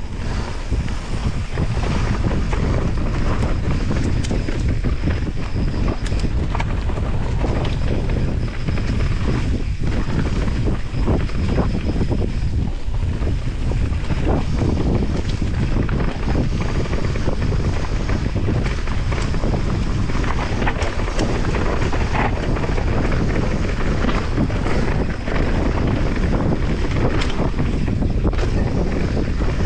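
Wind buffeting the microphone of a camera mounted on a descending mountain bike, over the rumble of knobby tyres rolling on a dirt, grass and leaf-litter trail. Frequent short clicks and rattles come from the bike over rough ground.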